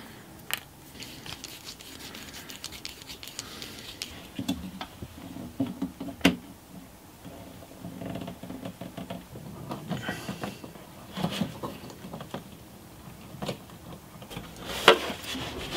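Handling noises: irregular small clicks, taps and scrapes as a plastic diesel fuel tank and its fittings are handled and screwed to a wooden board with a hand screwdriver, with a few sharper knocks.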